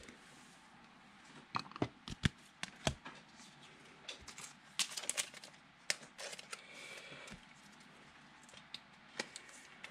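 Trading cards being handled and shuffled through by hand: scattered sharp clicks, taps and light sliding. The clicks cluster a couple of seconds in and again around five to six seconds in.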